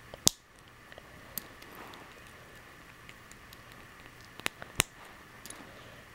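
Plastic Lego pieces clicking as they are handled and snapped together: a sharp click just after the start, two more close together about four and a half seconds in, and fainter ticks between.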